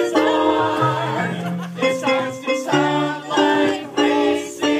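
A small amateur choir singing a comic song, accompanied by a digital piano playing chords over a moving bass line.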